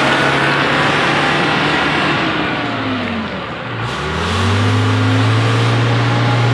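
Ballast regulator's diesel engine running under load as it travels along the track. About three and a half seconds in, its revs sag and then climb again as it pulls away.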